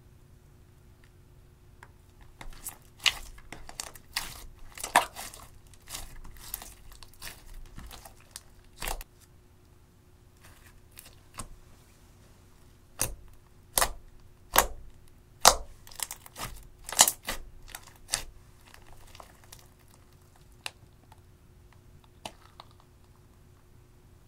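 Thick blue slime being stretched and squeezed, giving crackling clicks and sharp pops in two bursts; the second burst, about halfway through, is the louder.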